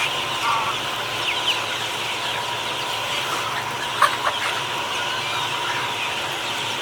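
A flock of chickens clucking, with many short, high, falling peeps throughout and a sharp click about four seconds in.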